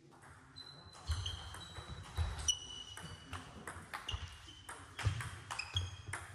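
Table tennis rally: the ball clicking back and forth between bats and table in a quick, irregular series of hits, starting about a second in, several with a short ringing ping.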